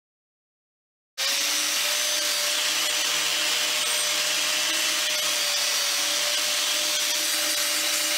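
Angle grinder running steadily, its disc grinding down a weld on steel plate, with a steady whine over a loud hiss. It starts abruptly about a second in, after dead silence.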